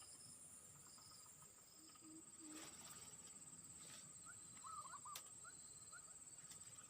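Faint insects trilling in a steady high drone, with a run of short rising chirps from another small creature in the second half and a few soft clicks.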